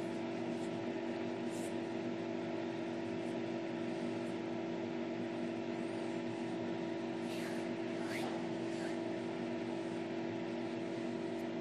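Steady background hum made of several constant tones over a light hiss, with a few faint brief higher sounds about seven to nine seconds in.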